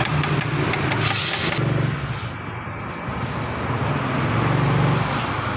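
Motorcycle engine running, its hum swelling and fading a few times, with sharp metallic clicks during the first second and a half.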